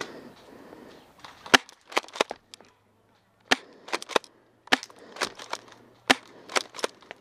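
A string of sharp, irregular pops and cracks, some in quick pairs: airsoft gunfire in a skirmish.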